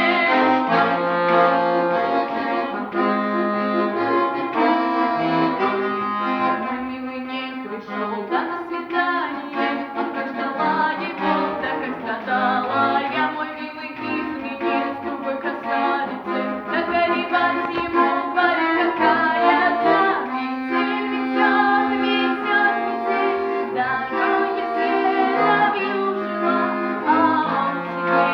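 Accordion music: a song tune played in chords over a stepping bass line.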